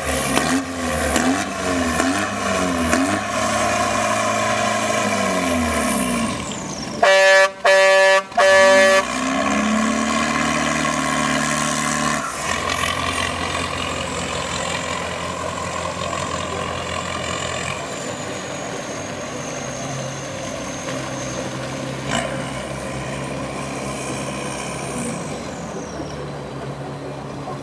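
Small tugboat engines running and changing speed, with three short loud blasts of a horn about seven seconds in.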